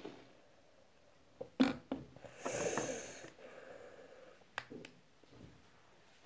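Light clicks and taps of small plastic makeup cases being handled close to the microphone, with a short breathy puff of air about two and a half seconds in.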